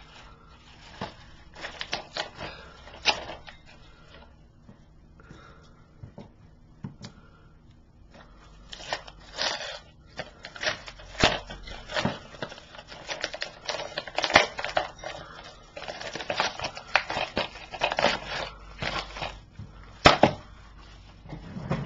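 Yellow padded mailer envelope being worked open by hand: irregular crinkling, crackling and rustling of paper and plastic, sparse at first and much busier from about halfway through.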